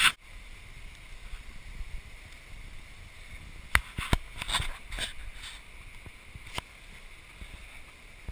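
Handling noise from a handheld camera: a loud knock at the start, then a few scattered clicks and rustles over a steady low rush.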